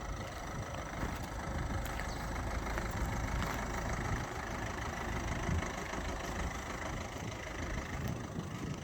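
Ford Transit Connect van's engine idling steadily, a low, even rumble.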